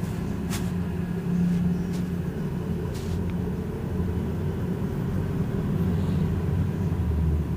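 Vacuum pump of an RMB Forward edge laminating machine running with a steady low hum, drawing down the chamber vacuum as a lamination cycle bonds new glass onto a phone LCD.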